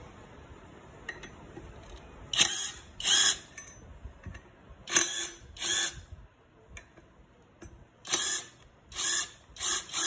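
Battery-powered impact gun with a socket on the rear sprocket bolts of a Yamaha YBR125 wheel, run in about seven short trigger pulls of roughly half a second each, mostly in pairs, as it loosens the bolts.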